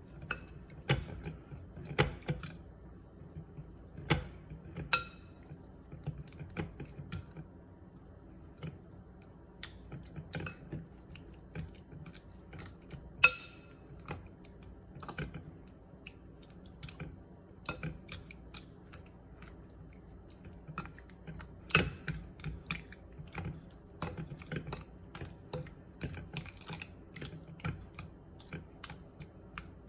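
Kitchen food-prep sounds: a run of light, irregular clicks and taps of utensils or a knife on a hard surface. They come faster and closer together near the end, with a few louder knocks along the way.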